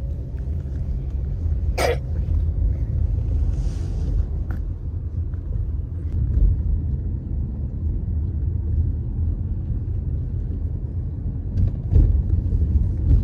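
Steady low rumble of a moving vehicle, with a sharp click about two seconds in.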